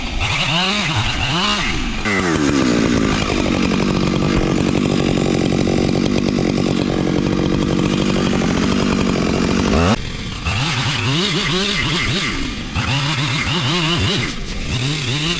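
Two-stroke chainsaw revved in short bursts, then held at full throttle for about eight seconds, its pitch dropping slightly as it bogs into a cut through wood, before it is let off suddenly and blipped again.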